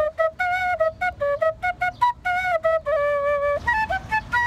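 Background music led by a flute: a quick melody of short, clipped notes, with a longer held note about three seconds in and another starting near the end.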